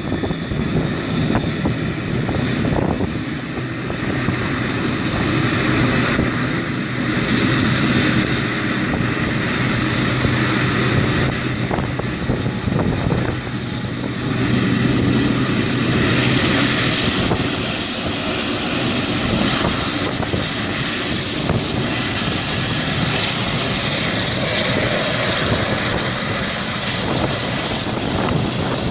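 Boeing 777's twin jet engines running as the airliner taxis past, a steady loud jet rumble and hiss that swells and eases a few times, with wind buffeting the microphone.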